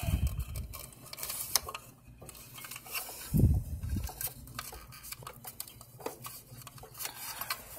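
Scattered clicks, taps and scraping as the cover is wriggled and pushed over a refrigerator compressor's start relay to snap it in. Two dull thumps, one right at the start and one about three and a half seconds in.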